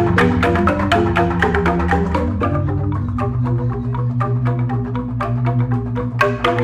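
Jegog, a Balinese bamboo-tube gamelan, playing: rapid interlocking strikes on the bamboo xylophones over long ringing low bass notes.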